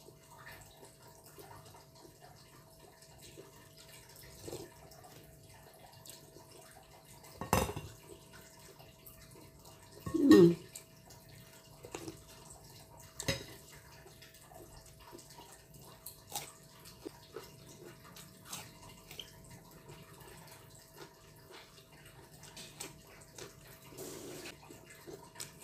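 Eating sounds: a metal spoon clinking now and then against a glass bowl and slurping of soup broth, with one louder slurp about ten seconds in.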